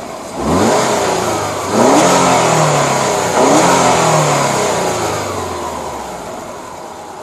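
A car engine accelerating: three rising sweeps in pitch, each dropping back before the next, then fading out slowly.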